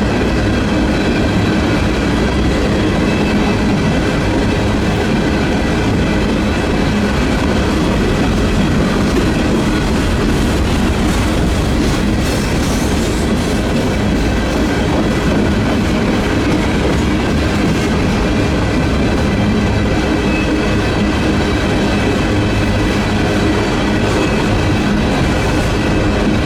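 Union Pacific freight train's cars rolling past: a continuous rumble of steel wheels on the rails with clickety-clack, and steady high-pitched tones from the wheels over it.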